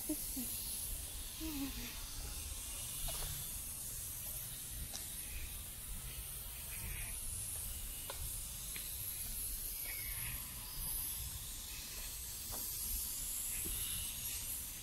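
Outdoor park ambience as someone walks: a steady high hiss over a low rumble, with a few faint scattered ticks.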